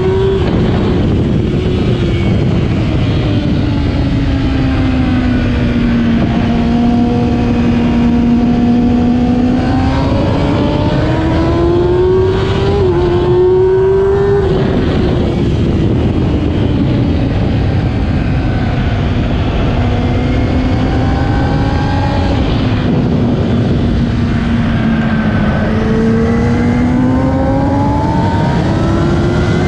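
2008 Kawasaki ZX-10R inline-four engine heard from onboard at race pace, its note falling and rising several times as the rider brakes, shifts and gets back on the throttle. A steady rush of wind lies beneath it.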